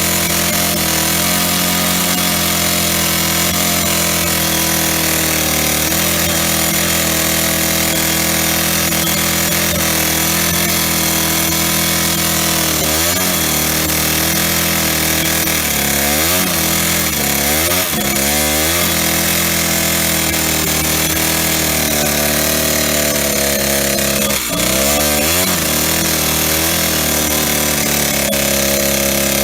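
Old Stihl 08S two-stroke chainsaw running at high revs, its engine speed dipping and recovering several times as it bogs down. The owner hears a knock from the top or bottom end and finds it very low on power.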